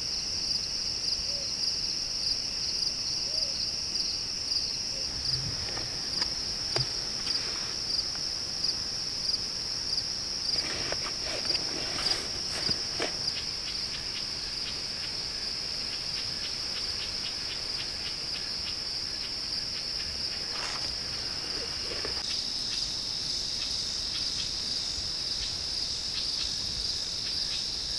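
Crickets chirping in a steady, high-pitched evening chorus, with a few faint rustles along the way.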